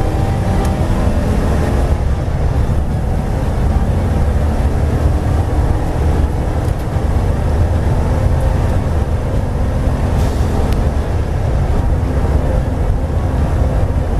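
V8 race car engine running at speed, heard from inside the cabin. It is a loud, steady low drone mixed with heavy road and wind noise, with the engine note shifting in pitch in the first two seconds.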